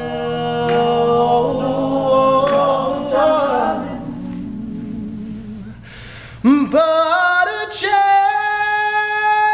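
Male a cappella group singing the song's closing chords without words: the held chord over a low bass note fades, then about six and a half seconds in the voices scoop up into a loud new sustained chord that is held.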